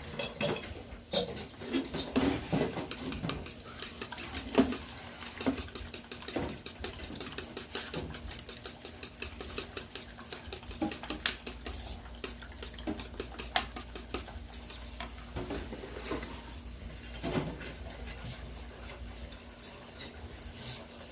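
Kitchen utensils clinking and scraping against dishes and a bowl during food preparation, with irregular taps and knocks.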